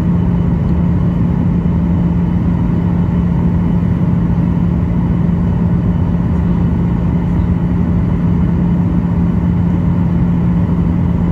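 Airliner cabin drone: the jet engines and rushing air make a steady, unbroken roar with a strong low hum, unchanged throughout.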